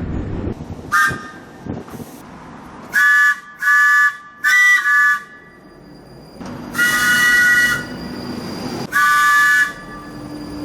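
Train horn sounding six blasts, each several notes at once: a brief toot, three short blasts in quick succession, then two longer blasts about two seconds apart.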